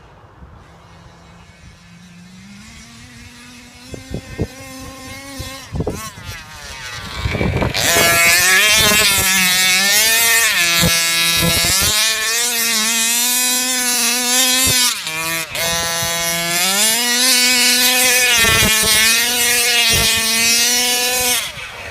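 Modded 32cc Revolver two-stroke engine in a large-scale RC Baja running at high revs. It is faint at first and grows louder, becoming loud about eight seconds in. The pitch then dips and climbs several times as the throttle is let off and opened again.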